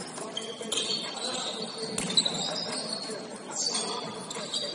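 Basketball game play: a ball bouncing and sneakers squealing against the court in short high chirps, in a large echoing gym.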